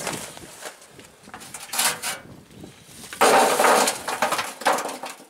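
Glowing charcoal briquettes tipped out of a metal chimney starter, clattering and tumbling onto the steel grill base: a short clatter about two seconds in, then the loudest pour a little after three seconds.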